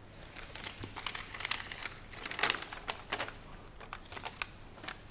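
Sheets of paper rustling as they are handled and handed over: a string of short crackly rustles, loudest about halfway through.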